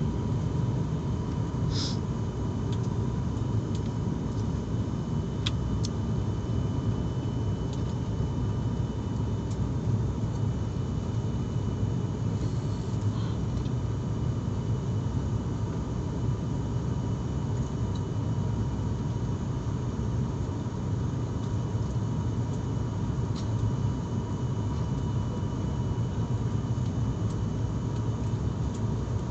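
Steady low drone of a passenger airliner's engines and airflow heard inside the cabin in flight, with faint steady whining tones over it.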